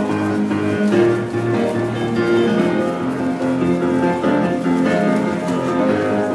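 Loud instrumental music with long held notes, the show's soundtrack.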